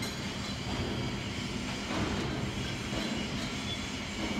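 Welding positioner's tilt drive motor and gearbox running steadily as the table is tilted toward 90 degrees, a constant low hum.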